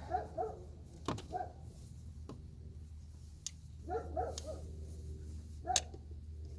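A dog barking in the background in short, paired yips, three times, with a few sharp clicks of parts being handled in between and a steady low hum underneath.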